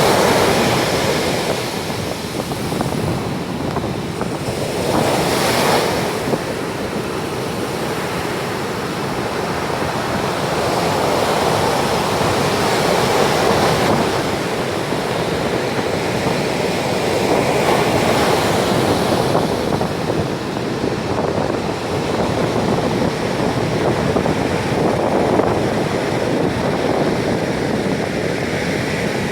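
Sea waves breaking and washing on the shore in a steady surge that swells and eases every few seconds, with wind buffeting the microphone.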